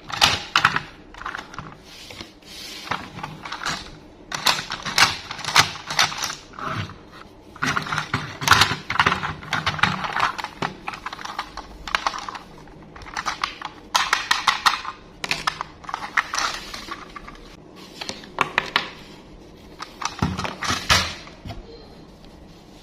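Toy packaging being handled and opened by hand: an irregular run of sharp clicks and crinkling, rustling bursts that comes in clusters, with the last burst about two seconds before the end.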